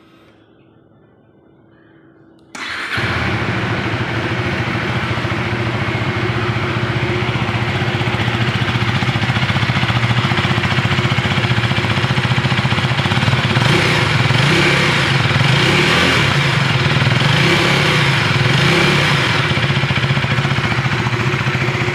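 KTM Duke 390's single-cylinder engine, on its stock exhaust, starting up suddenly about two and a half seconds in and then running steadily.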